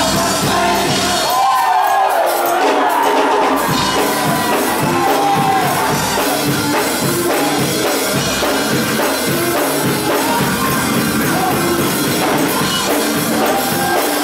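Church choir singing with a band, a gospel song over a steady beat. The bass and drums drop out for about two seconds near the start, then come back under the voices.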